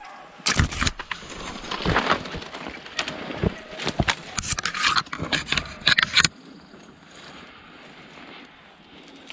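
Footsteps crunching and rustling through dry leaves and brush, loud and irregular, stopping abruptly about six seconds in.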